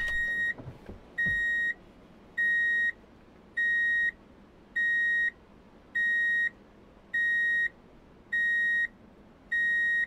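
Small electronic buzzer fitted to a handmade scrap-metal toy concrete mixer, beeping steadily: nine even, high-pitched beeps of about half a second each, one every 1.2 seconds or so. A short knock comes at the very start.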